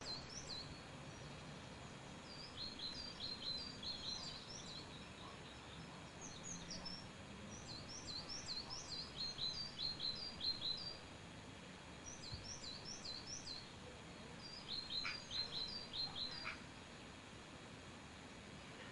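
Small birds chirping: bursts of quick, high chirps repeated every few seconds over a faint steady background noise.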